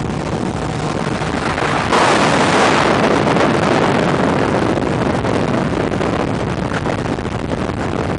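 Road and wind noise from a car travelling at highway speed, with wind buffeting the microphone. About two seconds in, a louder rush starts suddenly and then slowly fades.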